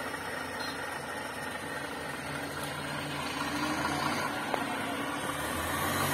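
Diesel engine of a heavy-haul truck running steadily at low speed as it creeps past pulling a multi-axle trailer; the engine hum grows a little louder near the end.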